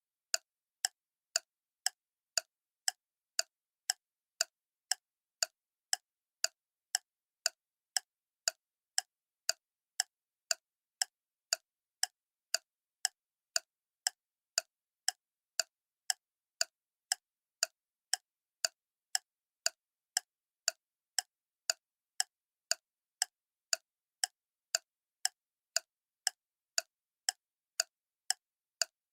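Clock ticking steadily at about two ticks a second, each tick a short sharp click with silence in between.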